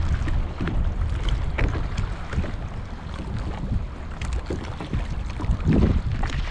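Wind buffeting the microphone in a steady low rumble, with small waves lapping and slapping against a Viking sit-on-top kayak's hull in short irregular splashes. A stronger gust or slap comes near the end.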